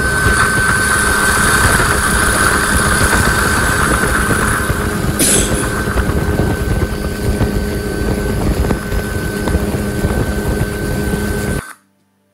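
Helicopter in flight: a steady loud drone of engine and rotor with a high whine above it. A short hiss comes about five seconds in, and the sound cuts off suddenly near the end.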